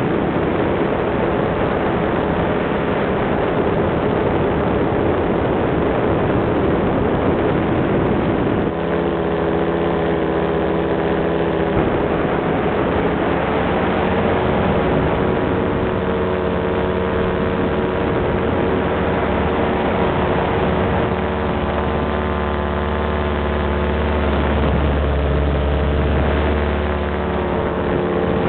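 A small engine running steadily over heavy wind noise, its pitch shifting a few times; the low rumble grows stronger near the end.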